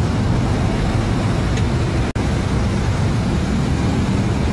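Steady rumble of road traffic and a running engine, with no revving. The sound cuts out for an instant about two seconds in.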